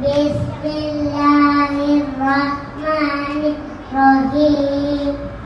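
A young boy singing solo into a handheld microphone, holding long, steady notes in short phrases with brief pauses for breath.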